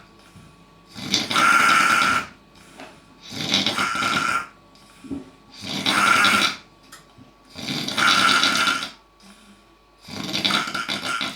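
Snoring: five long, loud snores in an even rhythm, one about every two and a half seconds, with quieter breaths between.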